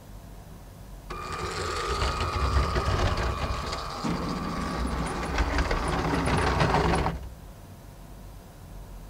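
Lego Powered Up train motors whining and plastic wheels clicking over the track as the trains run under automatic control. One train starts about a second in, a deeper running sound joins about four seconds in, and both stop abruptly about seven seconds in.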